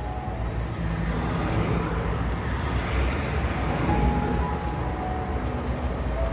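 Highway traffic: a continuous rush of tyres and engines from passing vehicles, swelling louder about three to four seconds in as vehicles go by.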